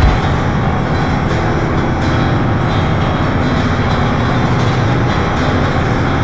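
Tank engine sound running steadily, deep and loud, with a brief louder moment right at the start.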